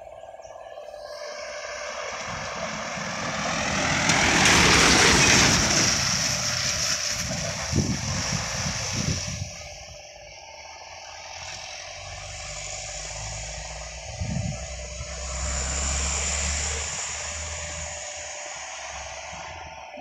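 Trucks driving past: engine and tyre noise swells to a loud peak about five seconds in and fades away, then a second truck's engine builds and fades in the latter half.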